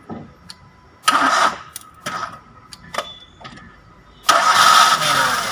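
Maruti Suzuki Wagon R's three-cylinder petrol engine being cranked on a jump-starter pack because its own battery is too flat. A short burst about a second in and a few clicks, then about four seconds in the engine catches and keeps running.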